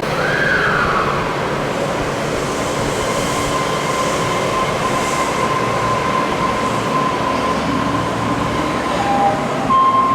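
Osaka Metro 400 series subway train departing the platform: steady running noise of wheels on rail, with a brief rising and falling whine in the first second and then a steady high-pitched whine held for the rest.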